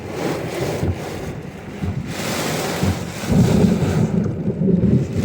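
Strong storm wind gusting and buffeting the microphone with a low rumble, the gusts strongest from about three seconds in.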